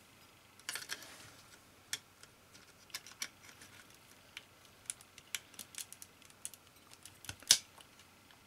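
Scattered small clicks and taps of a laptop memory module being handled and seated into a Mac mini's RAM slot, with one sharper click about seven and a half seconds in.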